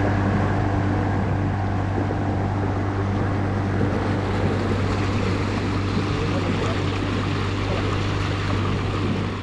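Outboard motor running steadily as a bass boat moves at speed over the water, with a constant low drone over the rush of water and wind.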